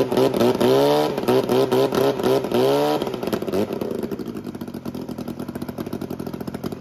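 Vintage Mercury KB two-man chainsaw's two-stroke engine running, revved in repeated short blips about once a second, then settling to a steady idle about three seconds in.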